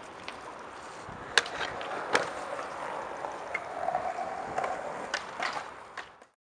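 Stunt scooter wheels rolling on smooth skatepark concrete, with two sharp clacks about a second and a half and two seconds in and a few lighter knocks later. The sound cuts off just before the end.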